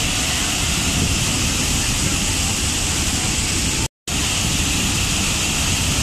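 Large waterfall in heavy flow: a loud, steady rush of water plunging off a high cliff onto rocks. It cuts out to silence for a split second about four seconds in, then resumes.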